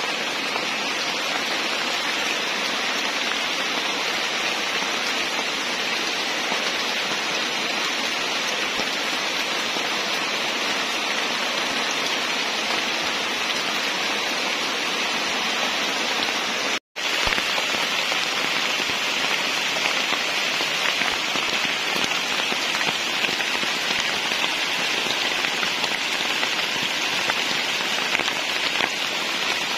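Steady rain falling on forest leaves, a continuous even hiss with a split-second gap about seventeen seconds in.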